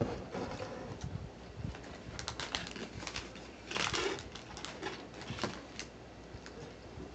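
Crinkling and rustling of food packaging, a chip bag and sandwich wrapper paper being handled, in short bursts with the loudest about four seconds in.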